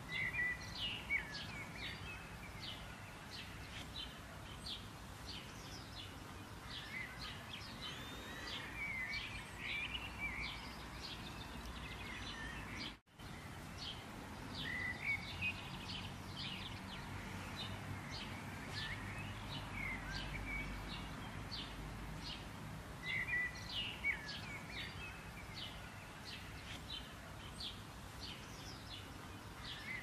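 Several small birds singing and chirping, with quick repeated chirps and short warbling phrases, over a steady low background hum. The sound cuts out completely for a moment near the middle.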